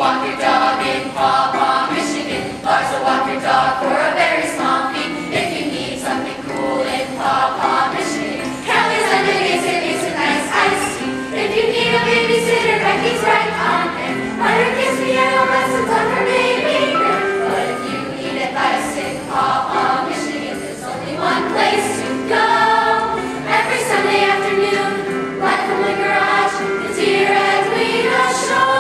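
A group of voices singing together over instrumental backing music, a musical-theatre song.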